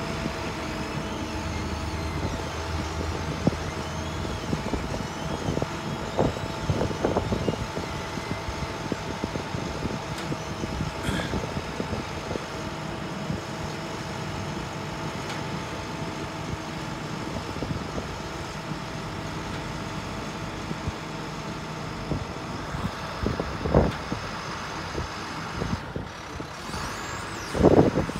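International 4300 bucket truck running steadily with its aerial lift working as the lower boom is raised: a continuous even mechanical hum with a few sharp knocks, a cluster about six seconds in and two more near the end.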